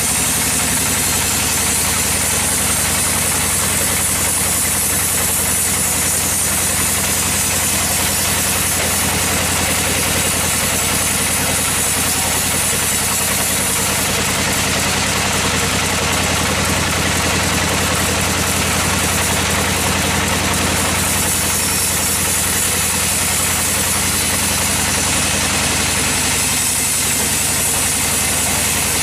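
Sawmill machinery running steadily: an engine drone with a constant high hiss over it and no marked changes.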